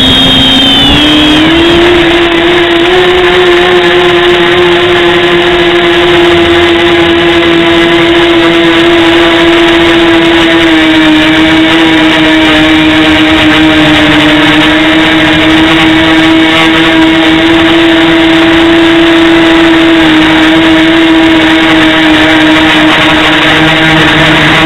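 Multirotor model's electric motors and propellers, heard loud and close from the onboard camera: a steady buzzing whine that climbs in pitch over the first couple of seconds as the motors spin up for takeoff, then holds nearly level in flight with small shifts in pitch.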